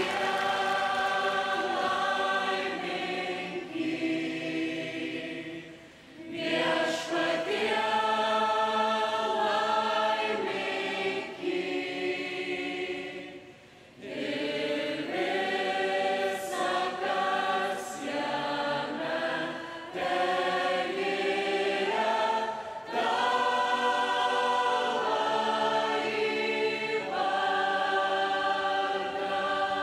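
A choir singing in long, held phrases, breaking off briefly about six seconds in and again about fourteen seconds in.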